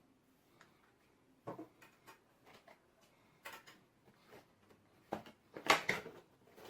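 Irregular handling clicks and knocks, with a louder cluster of clatter about five and a half to six seconds in.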